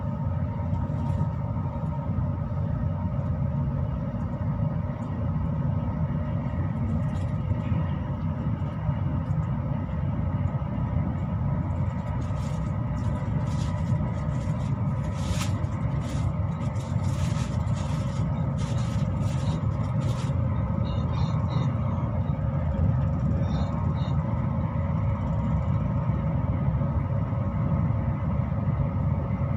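Passenger train running, heard from inside: a steady low rumble with a constant hum. A quick run of short hissing sounds comes about midway.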